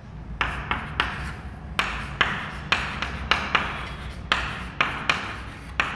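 Chalk writing on a chalkboard: a quick run of taps and scratches, about three strokes a second.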